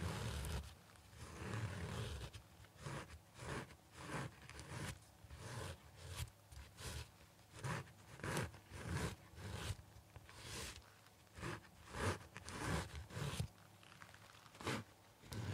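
N95 respirator mask being scratched and crinkled close to the microphone, in an irregular run of short rustling strokes, about one or two a second.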